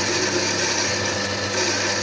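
Ditting electric burr coffee grinder running steadily, its motor humming as it grinds coffee beans at a medium-coarse setting.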